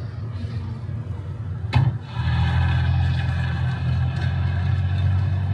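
Tour tram running with a low rumble; about two seconds in a sharp click, then a loud, steady drone of several held tones.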